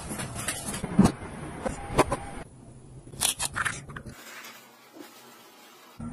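A few sharp knocks and clicks of things being handled: one about a second in, another at two seconds, and a quick cluster around three seconds, then quiet.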